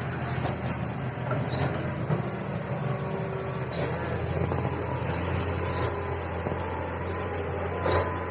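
A bird repeating a short, high, rising chirp about every two seconds, over a steady low hum.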